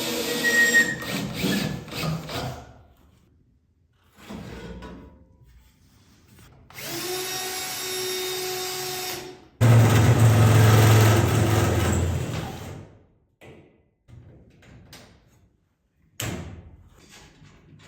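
Power drill running in three bursts. The first trails off a couple of seconds in, the second holds a steady pitch, and the third, the loudest, comes right after it with a heavier, deeper sound as it works under load. A few light knocks follow near the end.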